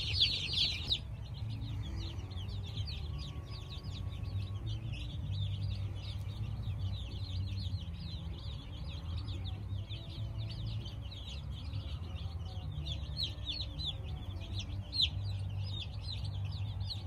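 A flock of day-old broiler chicks peeping, many short high chirps overlapping without pause, densest in the first second. A steady low rumble runs underneath.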